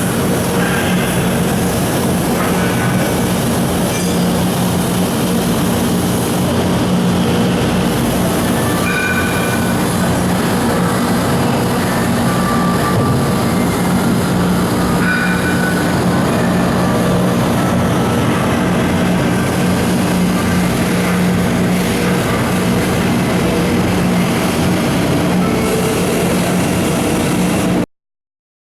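Mori Seiki SH-630 CNC horizontal machining center running: a loud, steady mechanical hum with short high-pitched squeals and whines here and there. It stops abruptly near the end.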